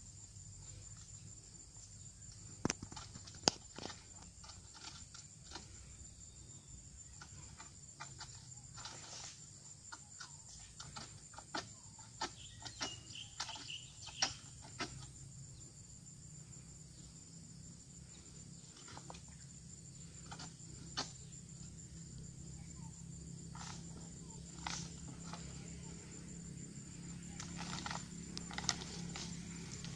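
Oil palm harvesting with a long-pole sickle: irregular sharp snaps and knocks as the blade hacks at the palm fronds. A steady high-pitched drone runs underneath.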